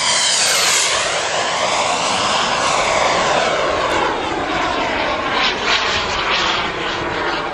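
Radio-controlled Eurofighter model jet flying fast, its loud jet whine sweeping down in pitch as it passes close, then rising and falling as it manoeuvres further off.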